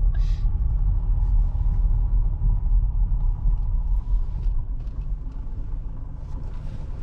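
Low, steady rumble of a car being driven, engine and road noise, getting somewhat quieter over the last couple of seconds.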